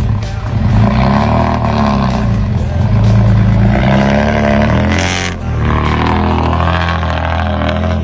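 Loaded diesel dump truck engine running under load and revving up and down as the truck pulls away over rough dirt. A short, loud hiss comes about five seconds in.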